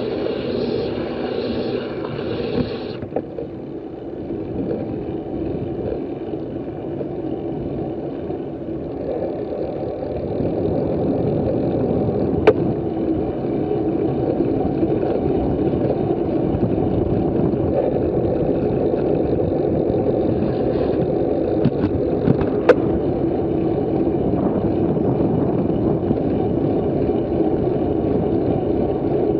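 Wind rushing over a moving bicycle camera's microphone, with road rumble underneath. A brighter hiss stops about three seconds in, and two sharp clicks come about twelve and twenty-three seconds in.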